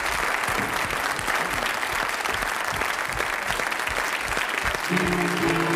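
Studio audience applauding. About five seconds in, music with held notes starts.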